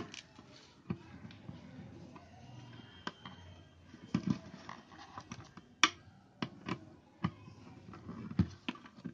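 Irregular small metallic clicks and taps of a screwdriver and wire terminals as the screws on an electric iron's terminal block are tightened and the wires are fitted.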